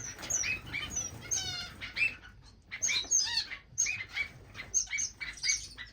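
A room of small finches chirping, many short high calls from several birds overlapping, with a quick run of notes about a second and a half in.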